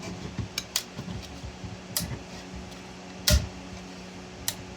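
3D-printed PLA support material cracking and snapping in sharp clicks as it is worked loose from the print, with one louder snap and thud about three seconds in, over a faint steady hum.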